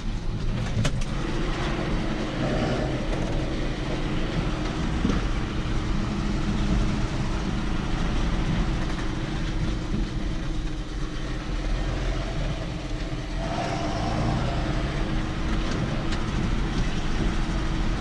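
John Deere tractor running and driving over cobblestones, heard from inside the cab: a steady engine drone with a rattling, clattering noise over it. A strange ringing that the driver suspects comes from the exhaust silencer.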